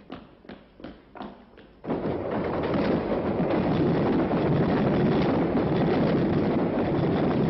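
Brisk footsteps on a hard floor, about three a second. About two seconds in they give way to a loud, steady rushing noise that cuts off suddenly at the end.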